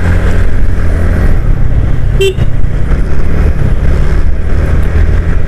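Wind rushing over the microphone and a TVS Ntorq 125 scooter's engine running while riding at speed, with a short beep about two seconds in.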